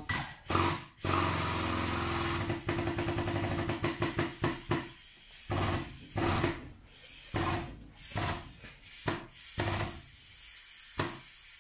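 Hydraulic foot pump being worked stroke by stroke to drive a chain pull on a car body's dented rear panel: a steady rasping hiss for the first few seconds, then a string of separate sharp clunks about every half second to a second.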